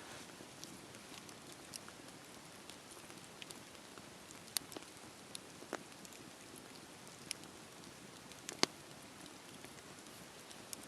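Wood fire crackling: a soft steady hiss with scattered sharp pops, the loudest one near the end and another about halfway through.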